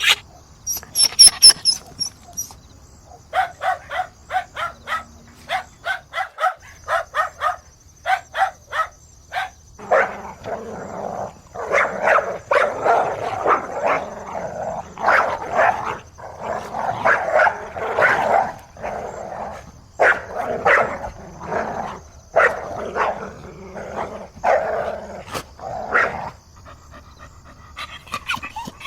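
Dog barking repeatedly, first in quick runs of short barks, then from about ten seconds in a denser, rougher stretch of barking that stops a few seconds before the end.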